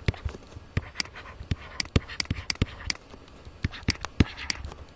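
Stylus tapping and scratching on a tablet screen while handwriting: irregular sharp clicks, several a second, with faint scratching between them.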